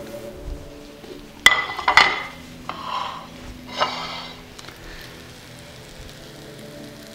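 A ceramic plate clinks sharply twice as it is set down on a stone countertop, followed by a few lighter clatters of metal kitchen utensils.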